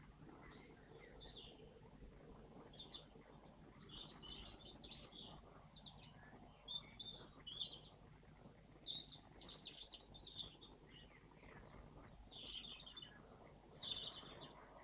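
Small songbirds chirping faintly in short, repeated high calls, in clusters throughout.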